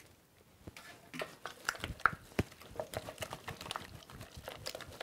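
Wooden spoon beating an egg into thick choux pastry dough in a stainless steel saucepan: irregular wet squelches and slaps with sharp knocks, starting about a second in.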